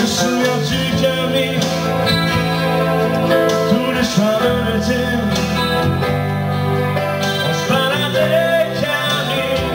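Live band playing a pop-rock song: strummed acoustic guitar, electric guitar and keyboard over a steady bass line, with a man singing lead.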